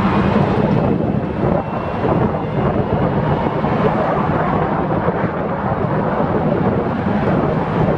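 Wind rushing over the microphone of a camera on an open scooter moving along a road, mixed with tyre and road noise: a loud, steady rumble.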